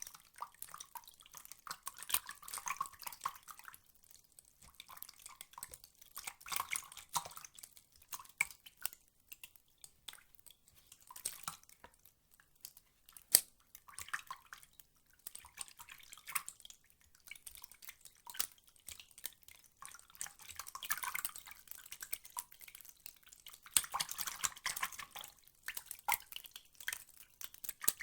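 Water dripping and splashing in irregular bouts of many small drops, with quieter gaps between, and one sharper, louder drip about halfway through.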